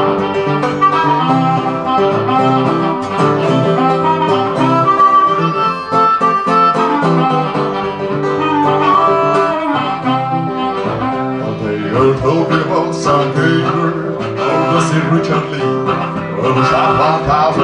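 Acoustic guitar and harmonica playing an instrumental break in a blues song, the harmonica carrying the melody with held notes over the strummed and picked guitar.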